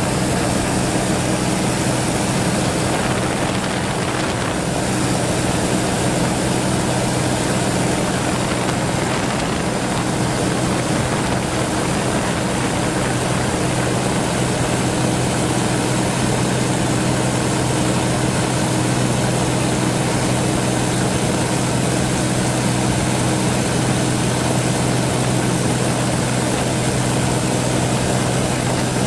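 An engine running steadily: a constant, unchanging drone with a low hum in it.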